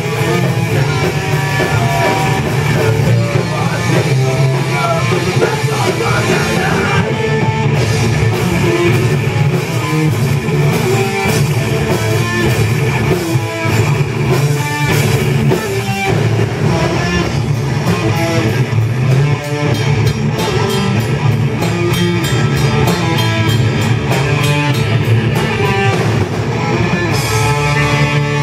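Live rock band playing loud and without pause: electric guitars over a drum kit, in a heavy rock style.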